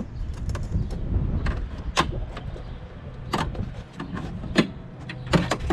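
Several sharp clicks and knocks as the plastic retaining tabs of a Jeep JL fender flare are squeezed with needle-nose pliers and pop free, over a low rumble.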